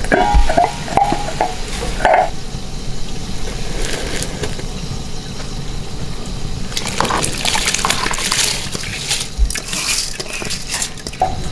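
A metal lid clinks as it is lifted off an aluminium pot of hot water on the stove. From about seven seconds in, rice is poured from a steel bowl into the water in a rushing, scratchy stream.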